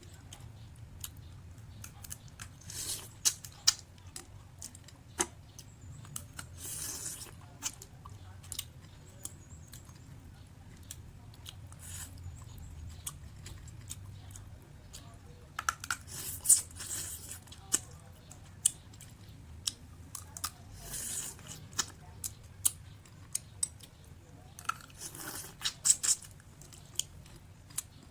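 Close-up eating sounds: chewing and crunching, with many sharp clicks and several short rustling, crackling bursts.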